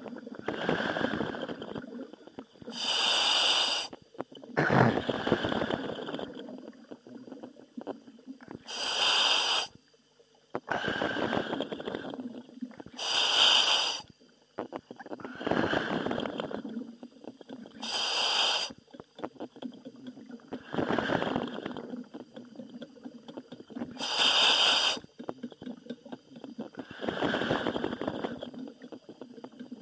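Diver breathing through a helmet demand valve, heard over the diving comms: a hiss of gas on each breath in and a rough, bubbling rush on each breath out, about six breaths with short pauses between.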